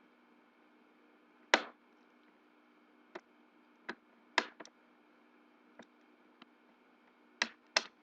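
Irregular sharp clicks and knocks of small plastic phone parts and tools being handled during the disassembly of a Samsung Wave 533 mobile phone, about nine in all with a quick pair near the end, over a faint steady hum.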